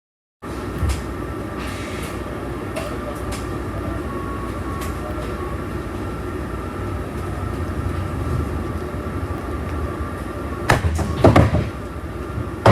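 Cabin noise inside a moving bus: a steady low rumble with a faint steady whine and scattered rattles and clicks. A cluster of loud clunks about eleven seconds in.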